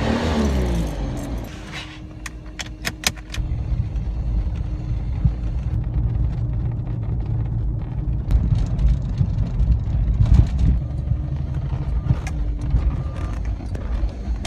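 A car engine being cranked over on its starter, turning but not catching, as a car that won't start. A few sharp clicks, like ignition keys, come about three seconds in.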